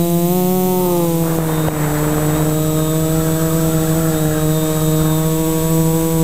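Quadcopter's electric motors and propellers running in flight, heard from the onboard camera as a steady buzzing hum. The pitch sags slightly about a second in, with a brief rush of air, then holds level.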